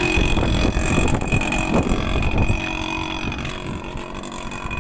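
Wind buffeting a phone's microphone, a rough irregular rumble, with a steady high-pitched tone behind it.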